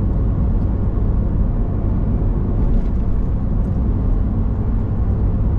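Steady engine and road-noise rumble inside the cab of a Ford Super Duty pickup driving at highway speed.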